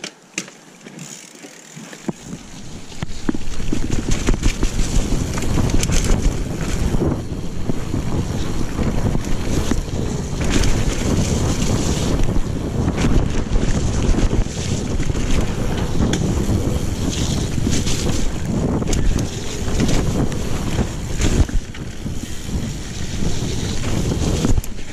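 Wind buffeting the helmet or handlebar camera's microphone over the rumble of mountain bike tyres on a dirt trail, with frequent knocks and rattles from the bike over bumps. Quieter for the first couple of seconds, then louder from about three seconds in.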